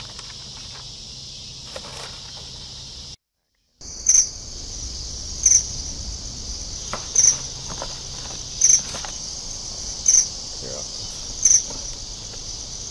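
Steady high-pitched insect chorus that drops out briefly about three seconds in. When it returns, a louder insect chirp repeats about every one and a half seconds over it.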